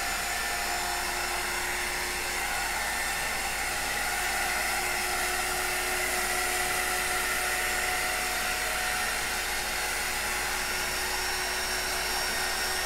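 Handheld Wonder Wand heat tool running steadily, its fan blowing with a thin motor whine over the hiss, as it slowly heats wet acrylic pouring paint.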